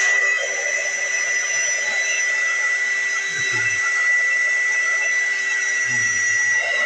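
Hot-air blower running steadily, a rushing stream of air with a steady high whine, heating thin plastic model parts to soften them for bending.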